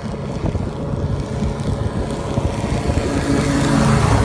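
A motor running steadily under wind and water noise, with its drone growing louder near the end.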